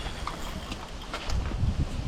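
A handful of light, irregular clicks and knocks over a low wind rumble on the microphone.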